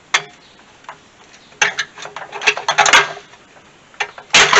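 Plastic grille retaining clips on a pickup's front end being worked loose by hand. First a sharp snap, then a run of clicks and plastic rattles, then a loud crackle near the end. The clips are already mostly broken from a front-end collision.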